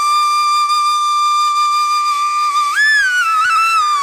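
Background music: a flute holds one long note over a steady drone, bends up briefly about three seconds in, then settles back down.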